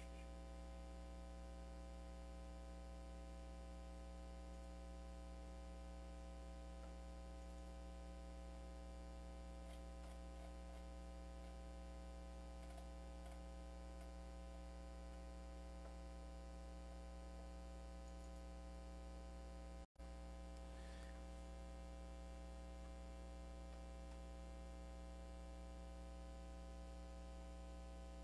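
Faint, steady electrical mains hum with a ladder of even overtones, with a few faint ticks scattered through it. The sound cuts out completely for an instant about twenty seconds in.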